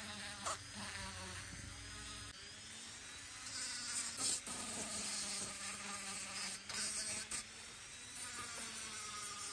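Small pen-style rotary tool whining at high speed as it cleans rust off metal, its pitch dipping and recovering as the bit bears on the part. First a small wire-brush wheel works a steel strip, then a sanding drum works a tattoo-machine frame, with a gritty scrubbing hiss where it bites hardest.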